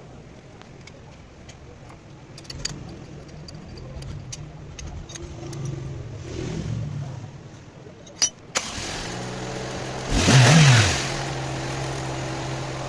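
Toyota Corolla engine idling, with a few faint clicks and two sharp clicks about eight seconds in. It is then heard louder and clearer, revved once briefly about ten seconds in, and settles back to a steady idle.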